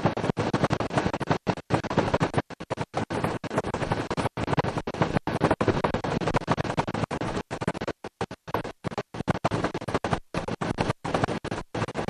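Helicopter noise from inside the cabin: a dense, steady rush of engine and rotor that keeps breaking up, cutting out completely for brief moments many times, like a damaged recording.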